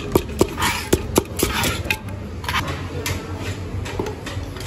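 Pestle pounding chilies and garlic in a mortar. There are sharp knocks several a second for about the first two seconds, then fewer, more spread-out strikes.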